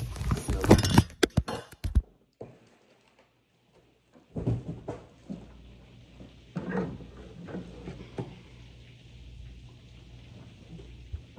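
Knocks and clatter as the recording phone is knocked over while the grill is lifted from its box, then near silence for about two seconds. After that come scattered dull thumps, muffled by the phone lying face down.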